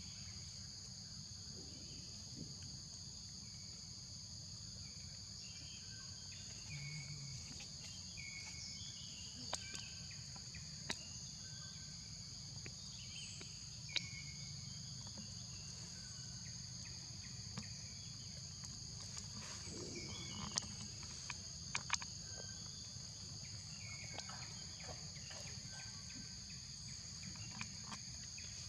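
Steady high-pitched insect chorus holding two continuous tones. It is dotted with short chirps and a few sharp clicks.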